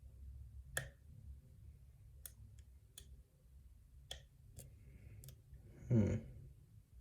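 Light, scattered metallic clicks of a lock pick and tension wrench working the pins of a custom pin-tumbler challenge lock, with one brief, louder low-pitched sound near the end.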